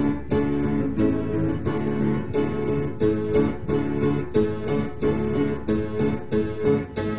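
Instrumental background music with a steady rhythm of about three notes a second.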